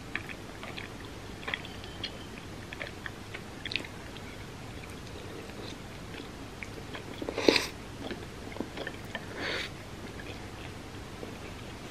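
Close-miked chewing of food, with many small wet mouth clicks. Two louder brief noises come about two-thirds of the way in, the first the loudest.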